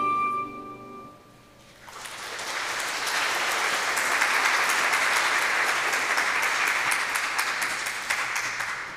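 A song's last held note dies away about a second in; then an audience applauds for about seven seconds, fading out near the end.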